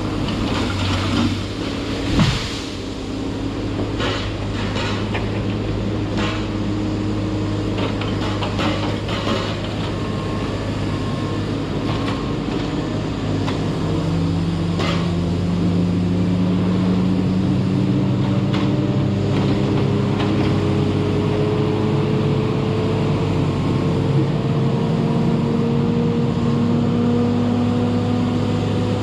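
Hot saw (disc-saw feller buncher) running under a steady engine drone. Several tones rise slowly in pitch through the second half, and there are scattered sharp knocks.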